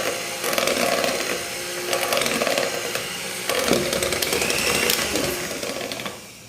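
Small electric kitchen mixer motor running steadily as it beats a sticky pie-filling batter, then switched off just before the end.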